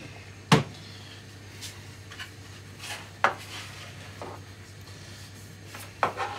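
A few sharp, separate knocks and clatters of kitchen utensils and dishes on a chopping board and worktop, the loudest about half a second in, over a steady low hum.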